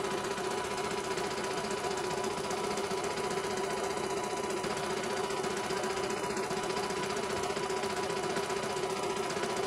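CNY E900 computerized embroidery machine stitching a test design, the needle running at a steady fast rate with a constant hum.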